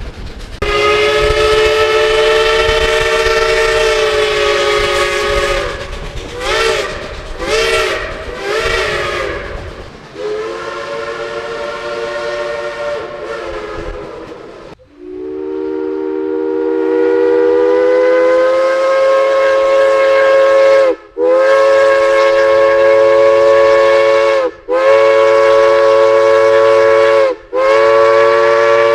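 Steam locomotive chime whistle sounding a string of long blasts, several notes together in a chord. Partway through, a few blasts waver in pitch as the whistle is worked. A later long blast rises in pitch as it opens, followed by three more blasts with short breaks between them. A low rumble runs under the first third.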